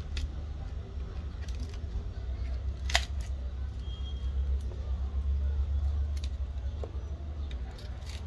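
Flat metal pry tool clicking and scraping along the edge of a Huawei Y9a's cracked display as the screen is pried away from the frame: scattered small clicks, the sharpest about three seconds in. A steady low hum runs underneath.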